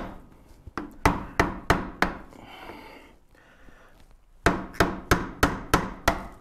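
Hammer blows on the rear wheel of a 1914 Studebaker, about three a second. There is a run of four, a pause of about two seconds, then a longer run of about seven, knocking a stuck part of the wheel loose.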